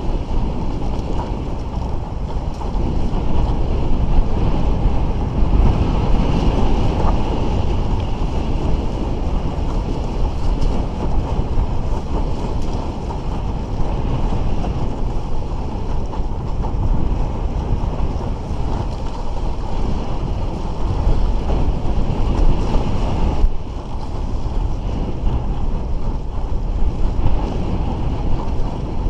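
Wind noise on the microphone and water rushing and splashing along a Bic Bamba windsurf raceboard under sail, steady and loud. It drops a little for a moment about three-quarters of the way through.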